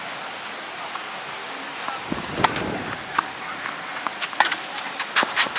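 Tennis rally: a sharp racket strike on the ball about two and a half seconds in, then a quick series of sharp hits, bounces and shoe scuffs on a sand-filled artificial grass court in the last second and a half.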